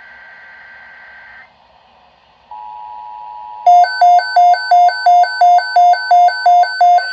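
Emergency Alert System tones for a tornado watch: a data burst of high steady tones ends about a second and a half in. After a short gap the steady two-tone attention signal starts. About a second later a much louder, rapid alarm beeping, about three beeps a second, comes in over it.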